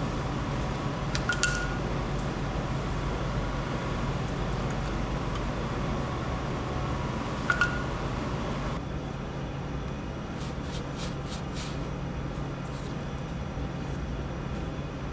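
A steady low hum under two light metallic clinks, one about a second in and one about halfway through, with a few faint taps later. These are the sounds of tools being worked on a Detroit Diesel 3-53 engine block.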